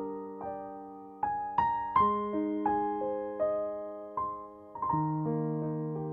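Slow background piano music: single notes and chords struck one after another, each left to ring and fade.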